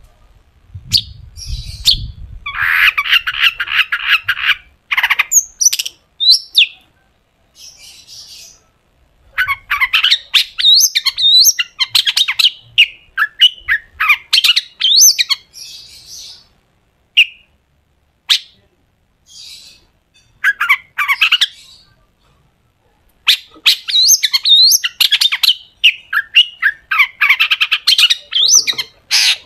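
Long-tailed shrike (cendet) singing in bursts of harsh, rapid chatter and sharp, piercing notes (the 'tembakan' the song is prized for), with short pauses between bursts. A low rumble sits under the first burst.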